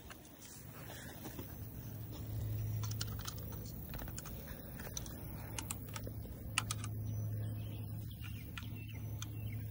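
Scattered light clicks and taps of handling noise over a steady low hum.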